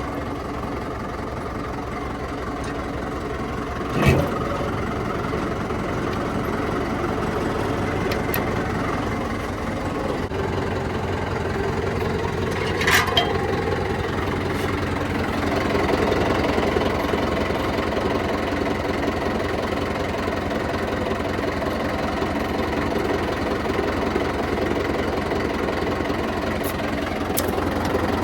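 Diesel engine of a JCB 3DX backhoe loader running steadily while loading soil, its note shifting a few times as the load changes. A sharp knock comes about four seconds in and another about thirteen seconds in.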